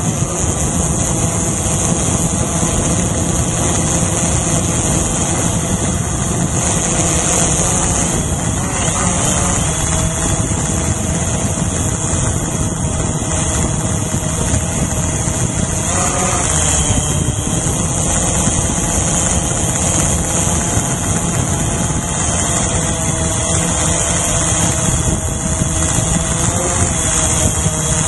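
Small quadcopter drone's electric motors and propellers running in flight, heard from its own onboard camera: a steady buzz with a high whine, its pitch shifting slightly now and then as the drone manoeuvres.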